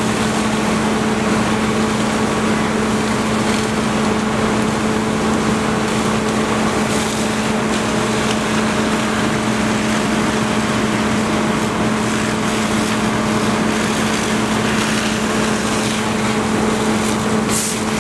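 Fire engine's pump engine running steadily under load, a constant hum, while it supplies hose streams, over a steady hiss.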